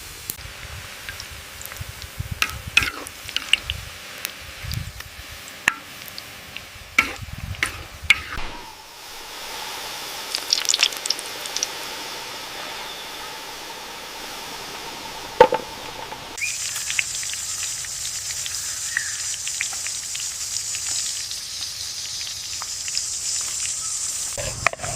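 Food frying in hot oil in a pan: a steady sizzle with crackles, and scattered sharp clicks and knocks in the first part. The sizzle grows stronger and higher about two-thirds of the way in.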